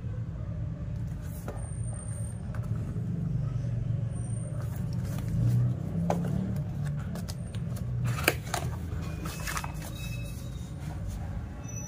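Cardboard airsoft-pistol box being handled and its lid lifted open, with a few rustles and taps in the second half and one sharp click about eight seconds in, over a steady low rumble.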